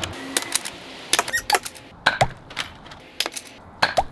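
Nerf dart blaster being primed and fired over and over: a string of sharp plastic clicks and snaps, several followed by a short rising squeak.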